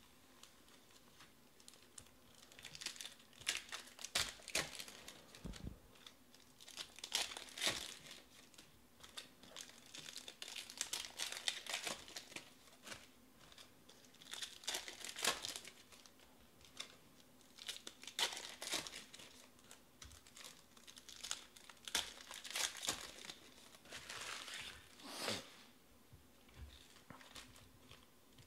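Foil wrappers of Select baseball card packs crinkling and tearing as the packs are ripped open one after another, in short bursts with brief pauses between them.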